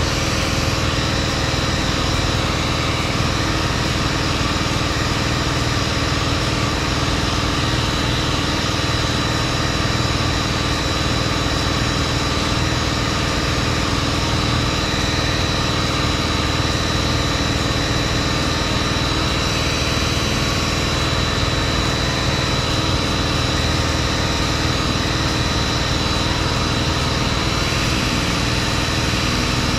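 Handheld orbital sander running steadily as it sands body filler on a bus's corner panel, with a constant high whine.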